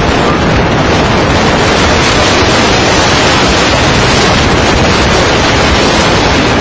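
Loud, steady rushing noise of wind and rough sea, with wind buffeting the microphone.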